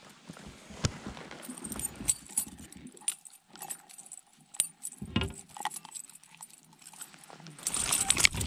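Irregular sharp clicks and light clinks: a lifejacket zipper tapping on a chest-mounted GoPro's microphone, mixed with handling clatter as a northern pike is unhooked with pliers at the boat's side. The clatter turns louder and denser near the end.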